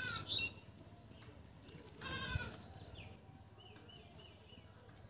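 A goat bleating twice: a short call at the start and another about two seconds in.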